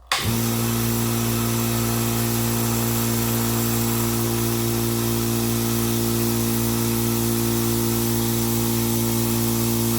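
VEVOR 8-gallon single-stage air compressor switching on and running with a steady hum, its 1 hp electric motor and pump filling the empty tank for the first time.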